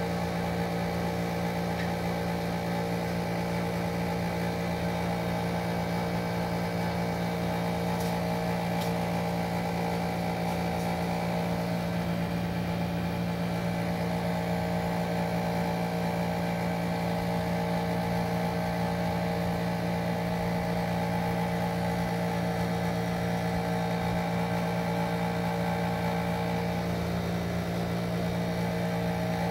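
A steady, unchanging machine hum made of several steady tones, with two faint ticks about eight seconds in.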